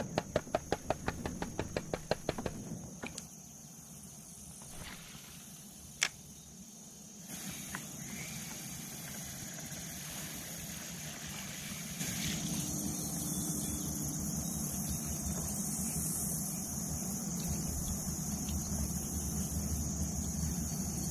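A rapid series of clicks, about five or six a second, for the first two or three seconds. Then a steady high insect drone over the low, steady rumble of highway traffic, which grows louder about halfway through.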